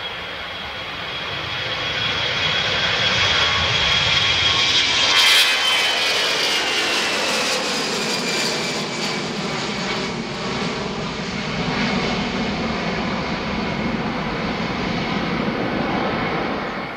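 Airbus A320-family twin-jet engines at take-off power as the airliner climbs out overhead, the jet noise building to its loudest about five seconds in. A high fan whine then drops in pitch as the aircraft passes and draws away.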